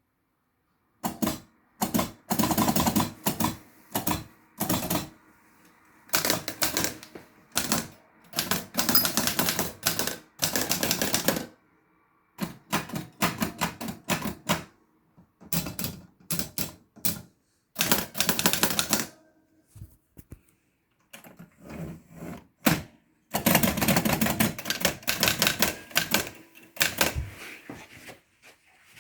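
A Salter 10 typewriter being typed on: runs of rapid clacking key strikes, broken by short pauses.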